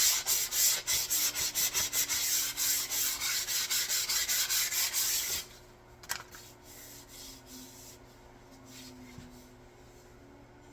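Rapid back-and-forth abrasive strokes on a wooden axe handle, about four a second, that stop about five seconds in. A single sharp click follows, then only faint handling sounds.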